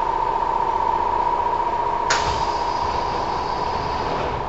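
Inside a Kintetsu 1000 series commuter train car, most likely at a station stop: a steady high-pitched hum with a low rumble beneath, and one sharp clack about two seconds in.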